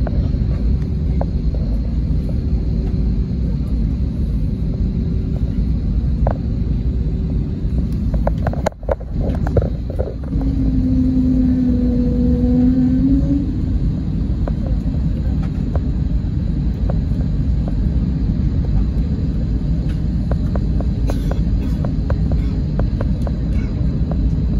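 Airbus A320 heard from inside the cabin while rolling on the ground: a steady rumble of the jet engines and wheels, with frequent small knocks from the landing gear over the pavement. A low droning tone is held for about three seconds near the middle.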